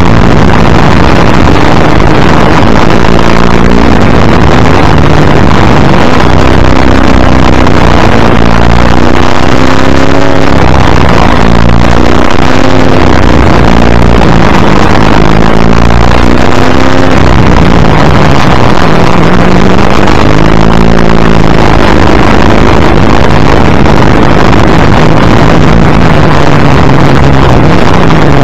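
1984 XD Group C Ford Falcon's V8 running hard in a race, its pitch climbing and falling repeatedly with gear changes and throttle. It is heard from the front bumper under a loud, constant rush of wind noise.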